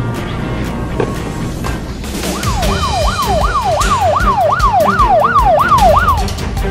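Electronic siren sound effect in rapid up-and-down sweeps, about three a second, over background music with a steady beat. The siren comes in about two and a half seconds in and stops shortly before the end.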